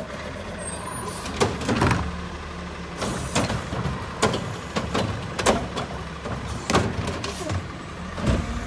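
Mack LEU garbage truck with a Heil Freedom front-loader body idling steadily while its front cart tipper grabs a trash cart, lifts it, dumps it into the front container and sets it back down. About eight or nine sharp clanks and bangs sound over the engine hum as the cart is shaken out and the cart, its lid and the trash strike the container.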